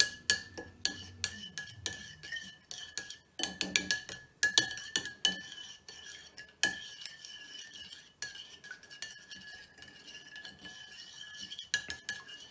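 Metal spoon stirring a runny egg-and-milk mixture in a ceramic bowl, clinking and scraping against the bowl many times at an uneven pace. A faint steady high tone runs underneath.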